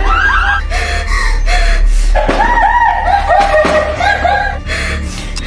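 A person's voice in runs of short, high-pitched rising-and-falling sounds, several a second and loudest in the middle, with breathy bursts of noise over a steady low rumble.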